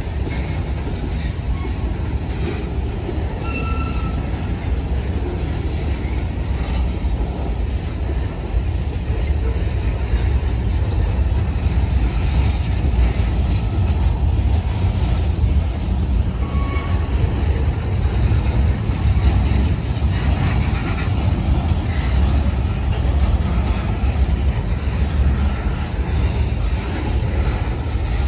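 Union Pacific freight train moving along the track: a steady, heavy rumble of the cars rolling on the rails, with a few short, faint wheel squeals.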